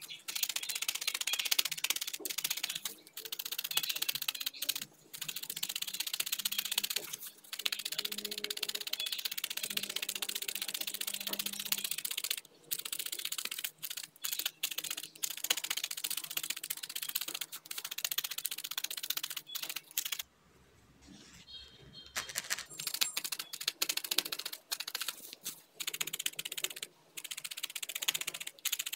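Felting needle stabbing rapidly and repeatedly through a tuft of wool into a foam pad, a fast run of crisp clicks. The stabbing stops briefly for about two seconds around twenty seconds in, then starts again.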